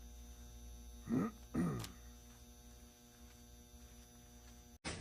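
Steady electrical mains hum, with two short calls that fall in pitch about a second in.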